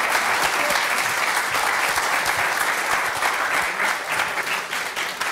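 Studio audience applauding, a dense steady clapping that eases off a little near the end.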